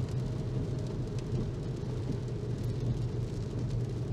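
Steady in-cabin car noise while driving on a wet road: a constant low engine hum with the hiss of tyres on the wet surface.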